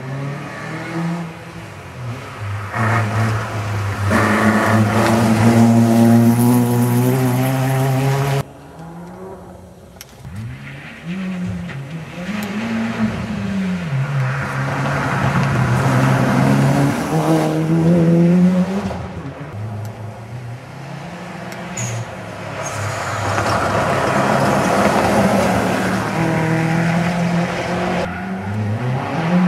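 Rally cars at speed on a special stage: engines revving high and dropping back with each gear change and lift. The sound comes in several short takes that cut off abruptly, about eight seconds in and again near the end.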